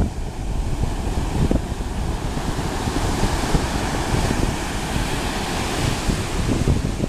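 Atlantic surf breaking and washing up the beach, the hiss of the foam swelling about halfway through, with wind buffeting the microphone in a constant low rumble.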